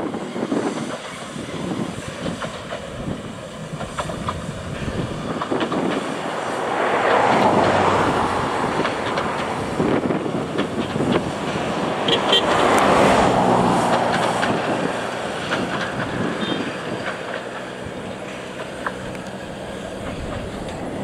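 Steam motor coach (the 'Coffee Pot') running along the line, its sound swelling and fading twice as it passes, with scattered clicks from the wheels over the track.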